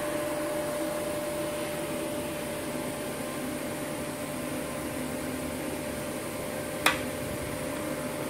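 Steady electrical hum from an automatic TIG welding setup, with one sharp click about seven seconds in.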